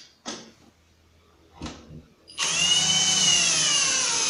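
A few light knocks, then about two and a half seconds in a cordless drill/driver starts and runs steadily, driving a 1¼-inch screw through an angled pocket hole into 18 mm melamine board. Its whine rises slightly in pitch, then sinks.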